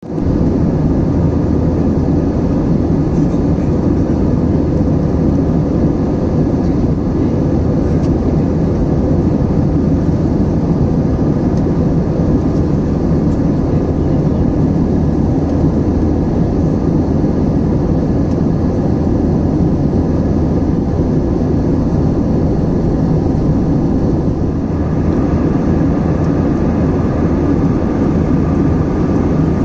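Steady cabin noise of a jet airliner in flight: a low, even rumble of engines and airflow with faint steady tones above it. The tone shifts slightly about 25 seconds in.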